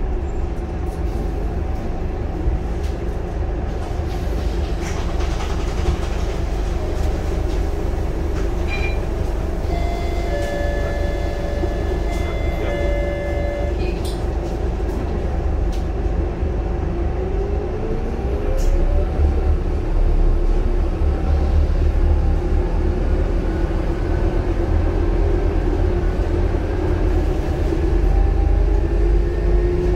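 Scania K230UB bus's DC9 five-cylinder turbodiesel and ZF Ecomat automatic gearbox heard from inside the cabin, running with road noise. About two-thirds of the way through the engine note rises and grows louder as the bus accelerates. Around ten seconds in, a steady electronic tone sounds for a few seconds.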